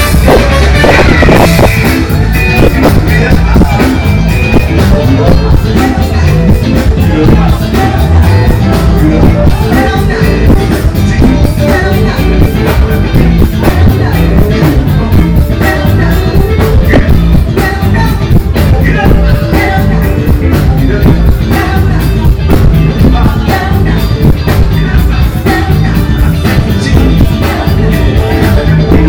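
Live funk band playing loudly with a steady, driving beat, vocals over the top at times.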